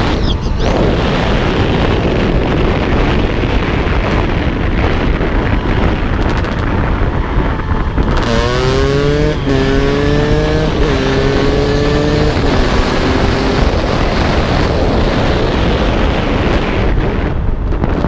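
KTM 200 EXC two-stroke enduro motorcycle being ridden, its engine nearly buried under heavy wind noise on the helmet-mounted microphone. About eight seconds in, the engine revs up through the gears: its pitch climbs and drops back at each of three shifts. It now revs freely, after a fault that had kept it from accelerating was fixed.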